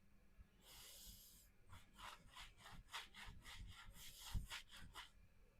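Faint rubbing of a knife blade worked in light strokes against a surface: one longer hiss about a second in, then a run of quick short strokes, several a second.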